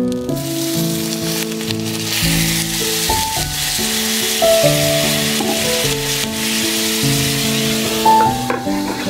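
Gyoza sizzling in hot oil in an iron frying pan: a loud, steady sizzle that starts just after the beginning and fades near the end. A sharp knock comes near the end, and background music plays throughout.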